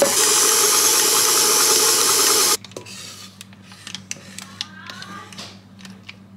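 Electric stand mixer running steadily with its beater churning thick chocolate batter, cutting off abruptly about two and a half seconds in. Faint scraping and light clicks follow as the batter is scraped out of the bowl.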